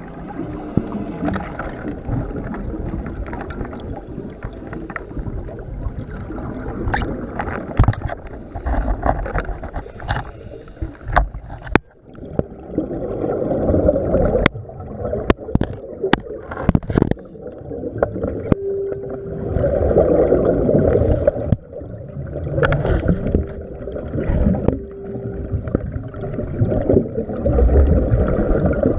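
Underwater breathing of a scuba diver on an open-circuit regulator: exhaled bubbles rush out in swells every few seconds. Sharp knocks and scrapes of gear against rock come through, heaviest around the middle, and a brief hum from the regulator is heard twice in the second half.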